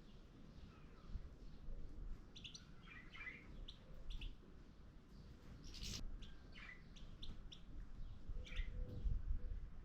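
Small birds giving short, scattered chirps over a low rumble.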